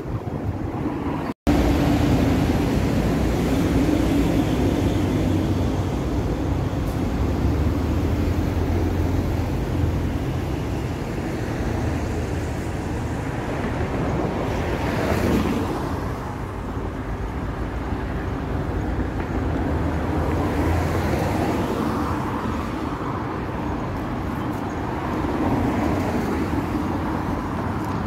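Steady road traffic noise from the street alongside, engines rumbling low, with one vehicle passing closer and louder about halfway through. The sound drops out for an instant near the start.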